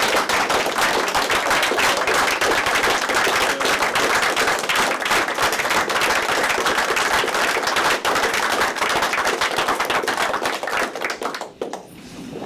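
Audience applauding: many hands clapping densely at a steady level, dying away near the end.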